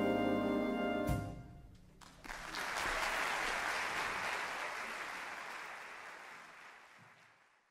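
A big band jazz ensemble holds its final chord and cuts it off sharply about a second in. Audience applause follows, starting about two seconds in and gradually fading out.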